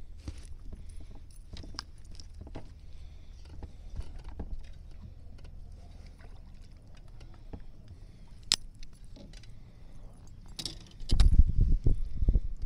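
Small clicks and light metallic rattling as a lure and its hook are handled and worked out of a largemouth bass's mouth, with one sharper click past the middle. Near the end, louder low rumbling thumps of handling noise as the fish is held up close to the camera.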